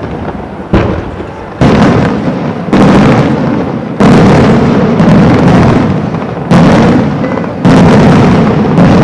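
Aerial firework shells bursting one after another in a display: about seven loud booms in nine seconds, each starting sharply and dying away over about a second before the next.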